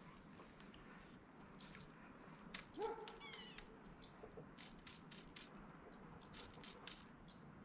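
Quiet waterside ambience with faint scattered clicks. About three seconds in there is one short squeaky call, followed by a few quick falling chirps.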